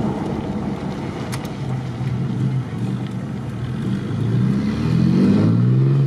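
Car engine and road noise heard from inside the cabin, a steady drone; about four seconds in the engine note rises as the car accelerates.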